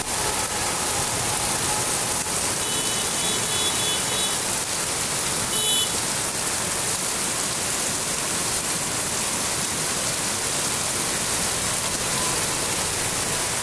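Heavy rain pouring steadily onto a paved lane.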